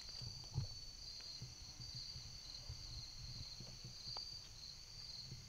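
Steady high-pitched chorus of insects in the late-summer woods, with scattered faint knocks and rustles of hunting gear handled in a tree and one soft thump about half a second in.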